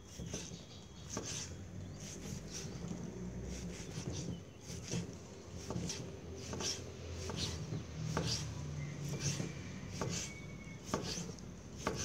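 Knife slicing grilled pork neck thinly on a wooden chopping block: a string of short cutting strokes, each ending in a tap on the board, about one or two a second.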